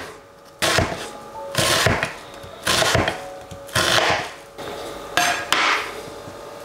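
Chef's knife dicing an onion on a plastic cutting board: a knock of the blade on the board with a short crunchy slice, about once a second.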